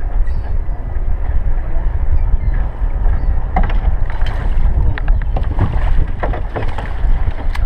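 Steady low rumble of wind and water on the microphone in a small fishing boat, with knocks and clatter against the boat from about three and a half seconds in, and splashing about six seconds in as a hooked striped bass thrashes at the boat's side by the landing net.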